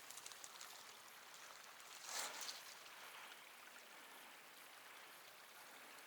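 Near silence: a faint steady outdoor hiss, with one soft, brief noise about two seconds in.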